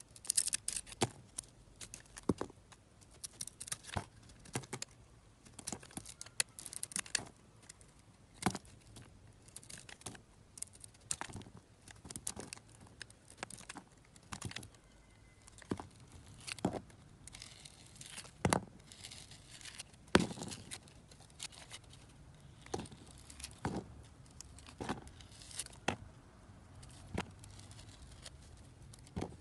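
Snap-off utility knife blade slicing and shaving bars of glittery soap: each cut is a short, crisp crunch. The strokes come irregularly, about one or two a second.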